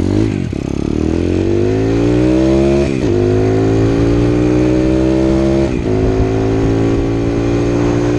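Piranha 140cc pit bike engine accelerating hard, its pitch climbing, with a quick dip about three seconds in and again near six seconds as it shifts up a gear, then holding steady at speed.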